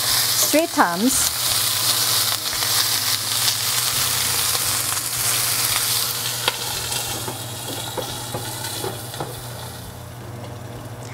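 Whole branzino sizzling in hot canola oil in a nonstick pan, a steady hiss that grows quieter near the end as a glass lid is set over the pan.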